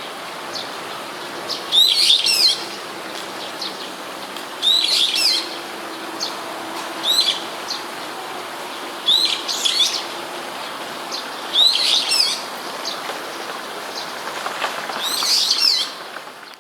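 Brown-eared bulbul calling: short, shrill, rapidly rising and falling phrases, six in all, repeated about every two to three seconds over a steady background hum.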